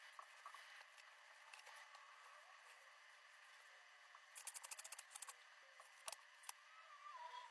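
Faint small clicks and taps from handling a phone and a screen protector, with a quick run of rapid clicks about halfway through.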